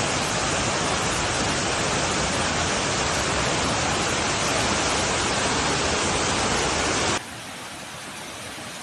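Steady rushing noise of heavy water. It drops suddenly to a quieter, duller rush about seven seconds in.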